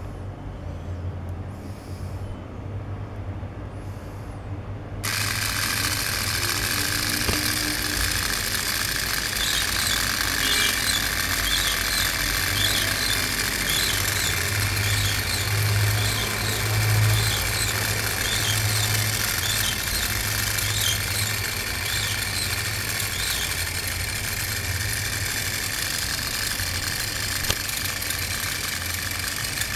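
Small electric motor and gear train of a Meccano model crane running, switched on suddenly about five seconds in and then going steadily, over a low hum. Through the middle a light squeak repeats a little faster than once a second as the pulleys and shafts turn.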